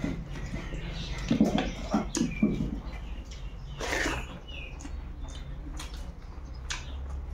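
Close-up eating sounds of a person eating rice and fish by hand: chewing and wet mouth sounds, with a few louder thuds between one and three seconds in, short clicks, and a burst of sound about four seconds in as a handful goes into the mouth, over a low steady hum.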